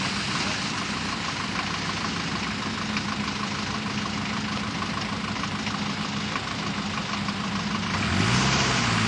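Land Rover Series 109 engine idling steadily, then revved once near the end, its pitch rising and falling back.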